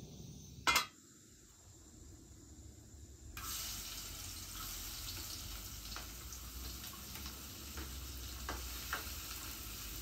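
A sharp metal clank about a second in as a pan is set down on a gas burner's grate, then oil frying in the pan with a steady sizzle, and a spoon stirring and ticking against the pan now and then.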